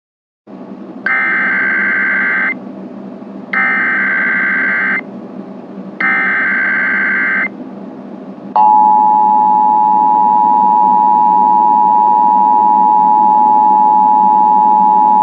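Emergency Alert System tones opening a Required Monthly Test: three bursts of the warbling SAME digital header, each about a second and a half long, then the steady two-tone attention signal, which starts about eight and a half seconds in and holds. A steady hiss runs underneath.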